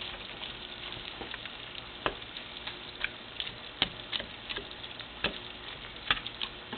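Spatula chopping and tapping at ground beef in a pan, a series of irregular sharp clicks over the steady sizzle of frying.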